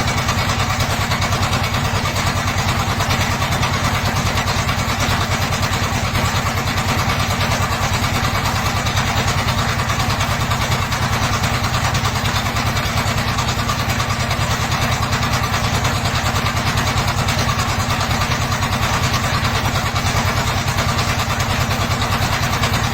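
Dongfeng diesel engine running steadily at an even speed, with a rapid, regular pulsing beat that does not change.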